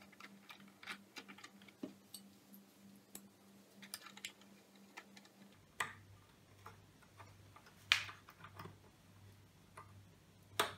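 Small irregular plastic clicks and taps as the clear plastic lamp-holder strip of a 1970s Pioneer TX-8500 II tuner is handled and pressed into place along the dial. There is a louder click about eight seconds in and another near the end, over a faint low hum that drops in pitch about halfway through.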